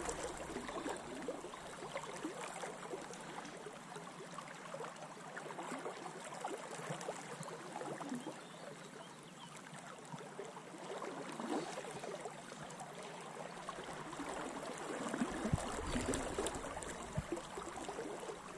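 A river in spate flowing steadily around a wading angler: a constant wash of moving water with small irregular splashes.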